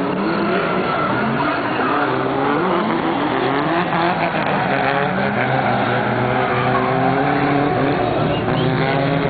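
Two drift cars, a Nissan Skyline and a Nissan Silvia S15, sliding in tandem: engines revving up and down with the throttle, over tyre squeal from the drifting.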